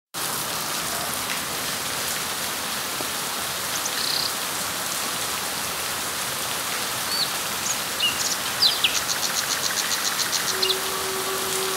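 Steady rain falling on leaves, an even hiss. Past the middle a bird gives a few short high chirps, then a fast run of high chirps at about seven a second.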